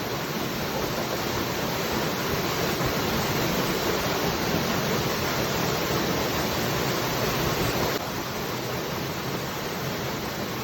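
Waterfall: a steady rush of falling water, dropping slightly in level about eight seconds in.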